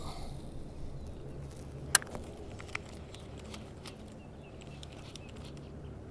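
Scattered light clicks and taps, with one sharper click about two seconds in, over a low steady rumble.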